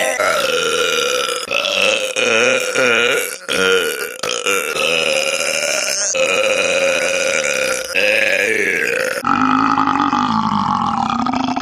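A person belching, a string of long drawn-out burps one after another with only brief breaks between them, their pitch wavering up and down.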